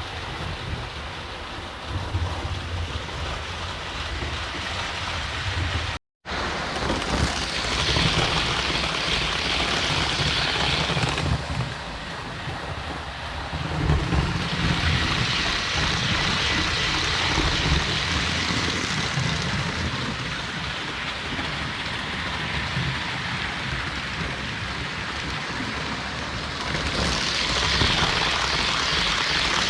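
HO-scale model trains running along the layout's track: a steady rolling rumble and hiss of wheels on rail, with a faint whine from the motors. The sound breaks off for a moment about six seconds in.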